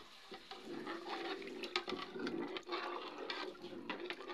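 Metal ladle stirring rice in water in a metal cooking pot: the liquid sloshes, with several sharp clinks of the ladle against the pot.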